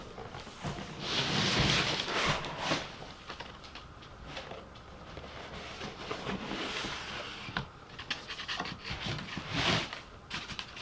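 Irregular rustling and crinkling of packaging being handled and pulled open, in several bursts with small clicks and knocks between them.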